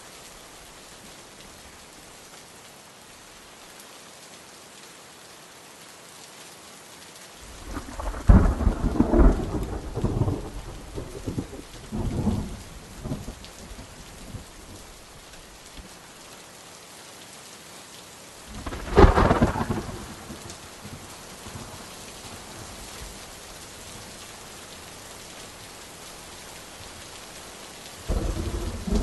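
Steady rain with rolls of thunder: a rumbling swell about a third of the way in, a stronger clap around two-thirds, and another near the end.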